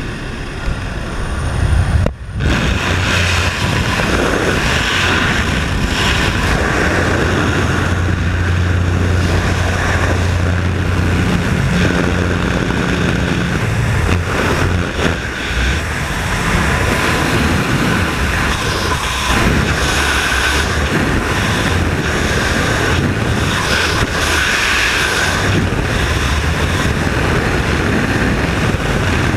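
Loud, steady rush of wind and a jump plane's propeller engine at the open door, with a low engine hum through the first half. The hum fades about halfway through, leaving the steady rush of freefall wind buffeting a helmet-mounted camera.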